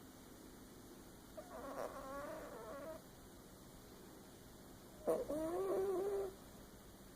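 A sleeping pet snoring: two drawn-out, wavering, whistly snores about three and a half seconds apart, each lasting a little over a second.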